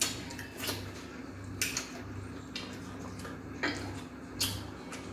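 Close-up eating noises of a person eating fufu with soup: about six short, sharp mouth sounds, roughly one a second, over a faint steady hum.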